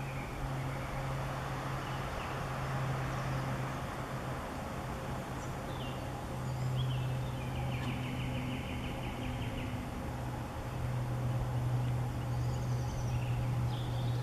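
Woodland birdsong: scattered short high chirps and a rapid trill of repeated notes lasting a couple of seconds from about seven seconds in, over a steady low hum.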